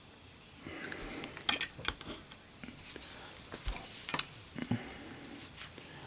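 Scattered light metallic clinks and taps as two Zippo lighters are handled and set onto small display stands.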